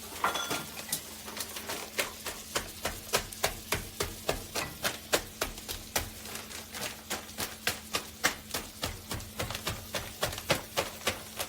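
A long, even run of sharp clicks or taps, about three to four a second.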